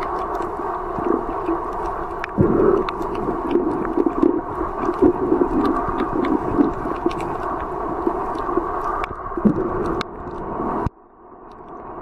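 Underwater sound picked up by a camera's microphone: a steady muffled rush with scattered crackling clicks, and a run of louder low, irregular bursts from about two to seven seconds in. Near the end the sound drops away sharply and then slowly comes back up.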